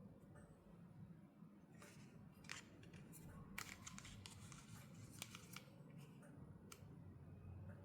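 Faint, sharp clicks and crackles of toy packaging being opened by hand, in a dense run through the middle few seconds.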